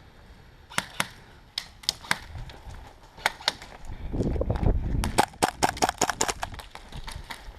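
Airsoft gunfire: scattered single sharp cracks, then a quick string of shots about five seconds in. A low rumble rises just before the string of shots.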